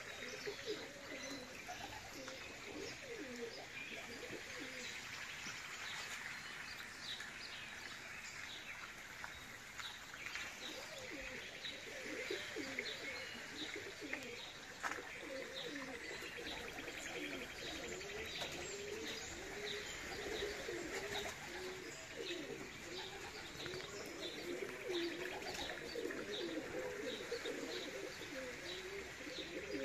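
Domestic pigeons cooing, a run of low rolling coos that grows busier in the second half, over many brief high chirps from small birds.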